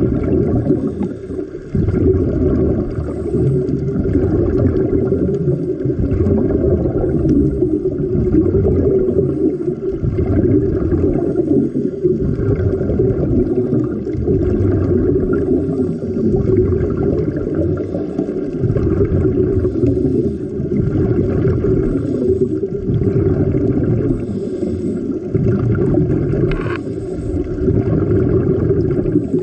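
Underwater ambience picked up by a camera below the surface: a steady, muffled low rumble and churning of water with bubbling, and nothing much above the low range.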